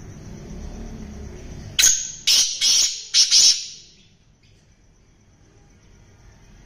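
Black francolin (kala teetar) calling: a loud, high call of about five notes in quick succession, starting about two seconds in and lasting under two seconds.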